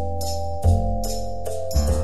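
Instrumental background music with a steady beat: sustained notes over a bass line, with a light, high percussion tick several times a second.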